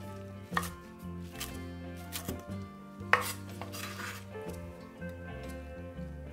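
Chef's knife coarsely chopping fresh mint leaves on a wooden cutting board: several sharp knife strikes on the board, roughly a second apart, over soft background music.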